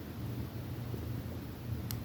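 Steady low hum with a single short click near the end.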